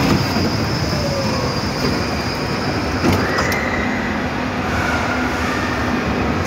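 Small indoor roller coaster running along its steel track: a steady rumble of wheels on rail, with a thin high whine coming in about halfway through.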